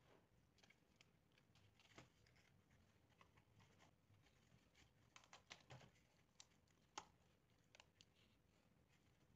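Very faint clicks and taps of a corrugated-board frame and its drinking-straw shaft being handled and set down, against near silence. The sharpest tap comes about seven seconds in.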